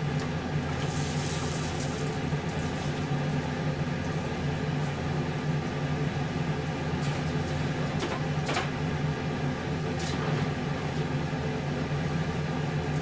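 Steady low electrical hum of a running kitchen appliance, with a couple of faint clicks in the second half.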